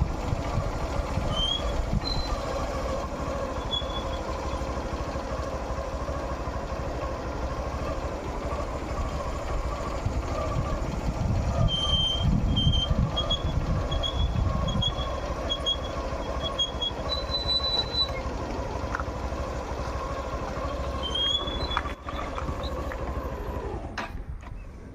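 A steady motor hum, with short high chirps and bursts of low rumble over it; the hum cuts out about a second before the end.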